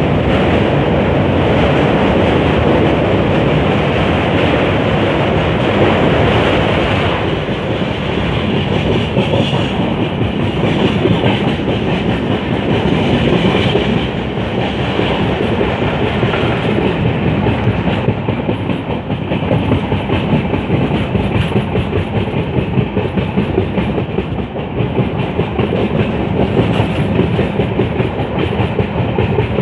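Indian Railways passenger train running at speed, heard from the coach's open side: a steady rumble of wheels on the rails, at first on a steel truss bridge. The sound changes about seven seconds in, as the train comes off the bridge onto open track.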